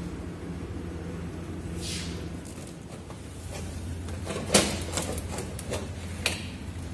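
Hands knocking and rattling against aluminium pipe cladding and foil-wrapped insulation: a handful of sharp clicks and knocks, the loudest about four and a half seconds in, over a steady low machinery hum.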